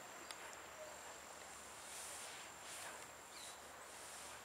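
Faint outdoor ambience: a soft even hiss with a few gentle swells, a thin steady high-pitched tone, and one brief high chirp about three and a half seconds in.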